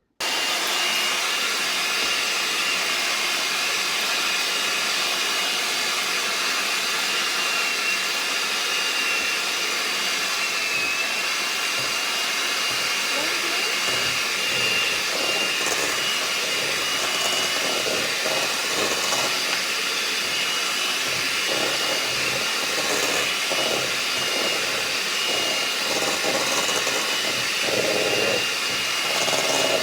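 Electric mixer switching on and running steadily with a high motor whine, beating butter and eggs together in a bowl.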